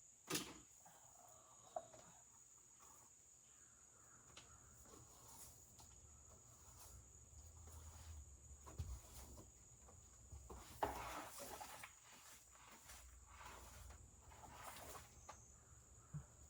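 Near silence: a faint steady high-pitched tone, with a few soft clicks and a brief rustle about eleven seconds in.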